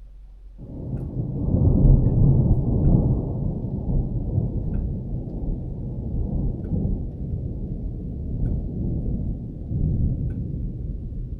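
A long roll of thunder. It swells in about half a second in, is loudest around two seconds in, then keeps rumbling unevenly with a couple of smaller swells.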